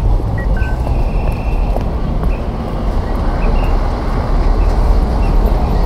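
City street traffic: buses and cars running with a steady low rumble, plus a few faint short high tones.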